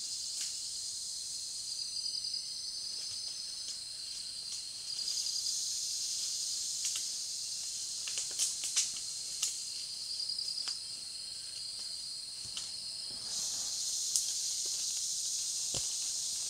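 Dense chorus of forest insects: steady high-pitched buzzing with pulsing layers that come in and drop out, a higher layer joining about five seconds in and again near the end. A few sharp clicks come in the middle, and there is a single low thud near the end.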